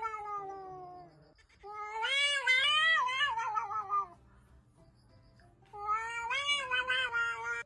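Domestic cat caterwauling: three long, drawn-out yowls with wavering pitch. The first falls away about a second in, and the last is cut short at the end. This is the yowling of two cats squaring off.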